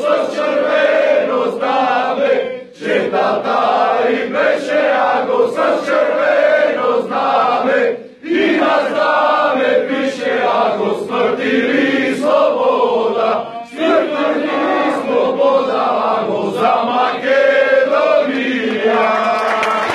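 A crowd of men singing a song together in unison, loud and steady, with three short breaks between lines.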